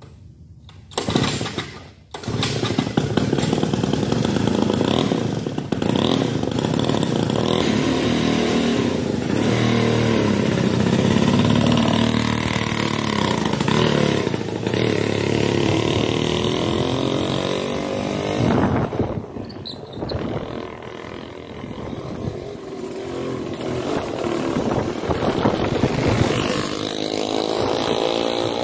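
Old 1970s go-kart's Power Bee two-stroke engine starting up: a short burst about a second in, then it catches about two seconds in and runs with a buzzy note, revving up and down as the kart is driven. It drops off for a couple of seconds past the middle, then picks up again.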